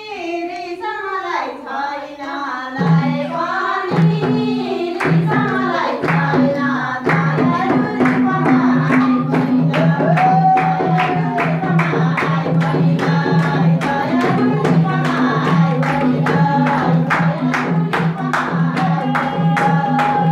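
Nepali Teej song: singing, joined about three seconds in by a steady low beat, then sharp beats in an even rhythm from about five seconds in, with people clapping along.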